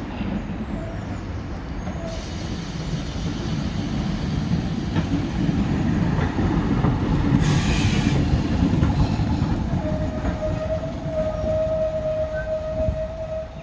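Diesel railcar running in along the platform, its engine and wheels giving a steady low rumble, with a short burst of hiss about seven seconds in. A thin, steady squeal sets in over the rumble about ten seconds in and holds to the end.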